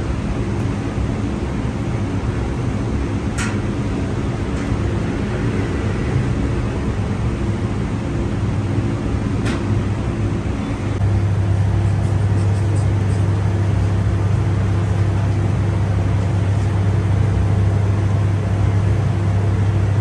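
Steady low mechanical hum of bakery machinery, which grows louder about eleven seconds in, with two brief sharp clicks in the first half.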